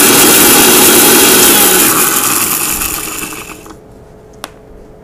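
Electric mixer-grinder running loudly, coarsely grinding dry-roasted fenugreek seeds, fennel and cloves. About two seconds in it is switched off and the motor winds down with a falling pitch over a second or so, followed by a single light click.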